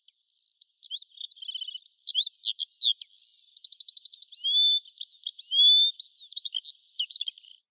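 A songbird singing a quick, varied song of chirps, slurred whistles and short rapid trills.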